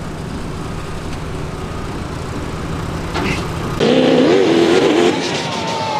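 A pulling vehicle's engine running with a steady low rumble. About four seconds in, the sound cuts abruptly to a louder engine note that wavers up and down in pitch, then glides lower.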